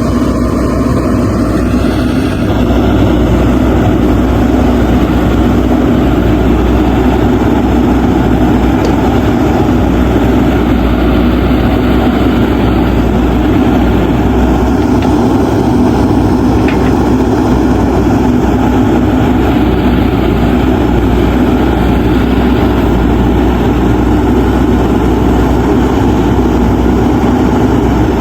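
JCB backhoe loader's diesel engine running steadily as the machine digs, a little louder from about two and a half seconds in.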